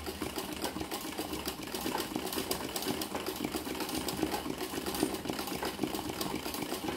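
Sewing machine stitching steadily at speed in free-motion embroidery, its needle punching rapidly through a hoop-stretched cotton towel with an even clatter.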